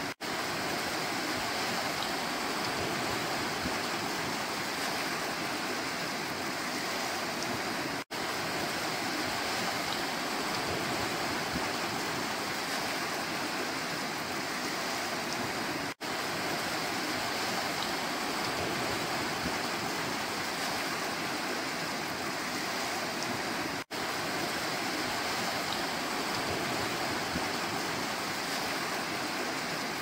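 Small sea waves washing onto a pebble-and-rock shore, giving a steady, somewhat rough rush of surf. The sound breaks off for a moment about every eight seconds.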